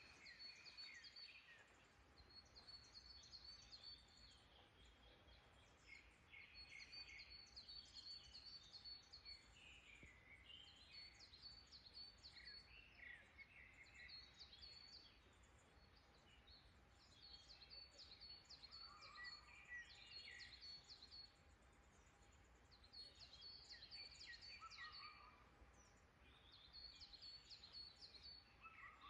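Wild songbirds singing faintly: high, quick trills and chirps in bursts a few seconds long, with short pauses between.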